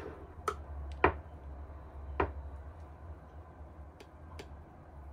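Five light clicks and knocks, the sharpest about a second in, from a Nespresso Aeroccino's stainless steel milk jug against a ceramic mug as frothed milk is poured into coffee, over a steady low hum.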